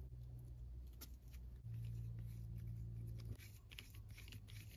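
Faint small clicks and light taps of a small screwdriver and tiny screws on a Traxxas TRX-4M crawler's brass steering block, over a steady low hum that cuts off about three and a half seconds in.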